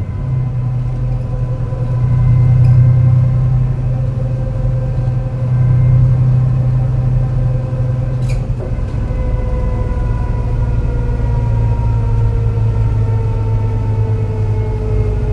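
MAN NL202 CNG city bus running under way, its gas engine giving a steady low drone, with a bad misfire, over the whine of its ZF Ecomat five-speed automatic gearbox. The gearbox whine drifts slowly down in pitch over the last few seconds.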